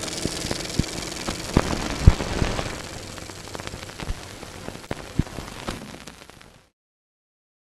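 Tail of an outro logo sound effect: a steady hiss with scattered crackles and pops, fading out and then cutting off about six and a half seconds in.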